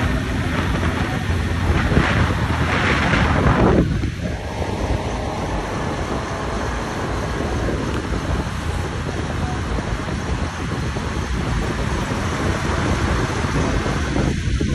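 Road and traffic noise with wind buffeting the microphone, heard from a moving vehicle, with a louder rushing swell about two to four seconds in.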